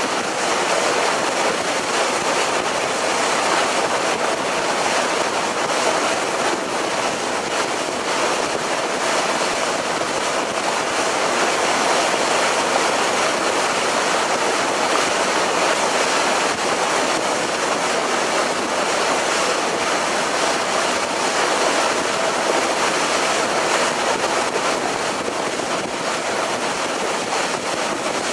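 Steady rush of water past the hull of a harbour ferry under way, with a faint steady engine hum underneath.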